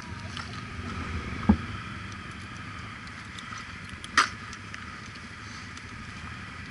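Two sharp knocks from tools and motorcycle parts being handled, a duller one about a second and a half in and a brighter, louder click just after four seconds, over a steady background hiss.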